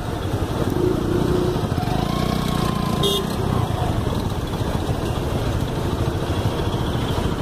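Motor vehicle engine running steadily, with a dense low rumble throughout.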